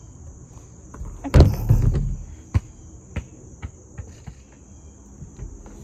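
Insects chirring steadily in a high, even drone. About a second and a half in, a loud thump and rustle, followed by a few faint ticks.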